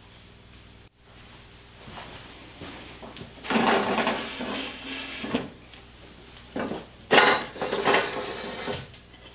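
A homemade forge's lever-operated steel door is worked by hand. Metal slides, scrapes and clanks in two spells, about three and a half seconds in and again about seven seconds in.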